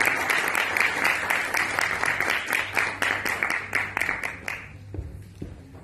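Audience applauding, a dense patter of many hands clapping that fades out about four and a half seconds in.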